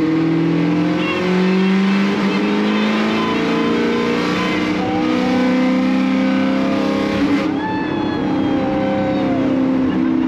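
BMW E92 M3's S65 V8 engine pulling under load, its note climbing slowly for about seven seconds, then easing off as the revs fall and settle at a lower steady note.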